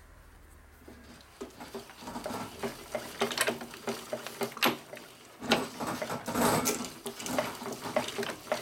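A socket ratchet clicking, with metal tool clatter, as a Harley XL Sportster engine is turned over by hand at the crankshaft nut to check that it rotates freely after the top end has been torqued. The clicking is irregular and gets busier about two seconds in.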